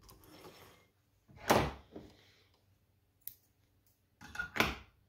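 Handling sounds at a sewing table, with the machine not running: a soft rustle, then a loud dull thump about a second and a half in, a small click, and a second thump near the end.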